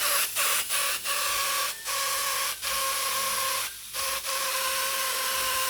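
Air spray gun hissing, driven by a homemade compressor built from a refrigerator compressor. It gives short spurts in the first second or so, then sprays steadily with one brief break near four seconds. A faint steady whistling tone sits under the hiss.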